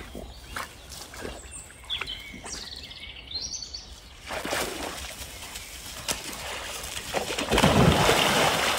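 Small birds chirping in the first half. Then loud water splashing near the end, as a dog jumps into the river and swims.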